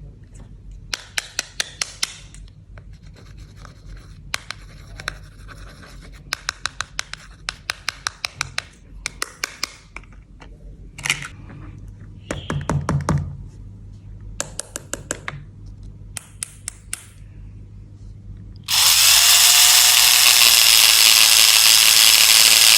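Runs of quick, sharp plastic clicks and taps from toy pieces being handled. About 19 s in, a much louder steady whirring noise starts suddenly and keeps going.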